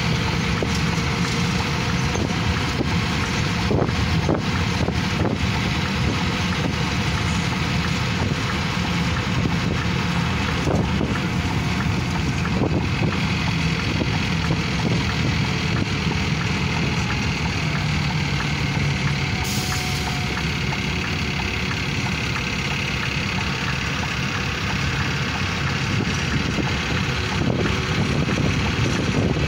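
Steady running noise of a road vehicle driving along: engine and tyre hum with a rushing road noise, unbroken throughout.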